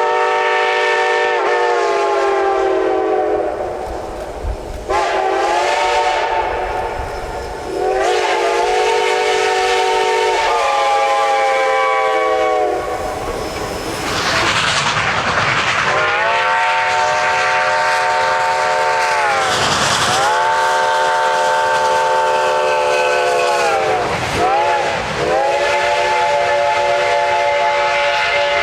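Steam locomotive six-chime whistle sounding a chord in a series of long blasts with two short toots between them, the pitch sagging slightly as each blast is shut off. A burst of hissing fills a gap about halfway through.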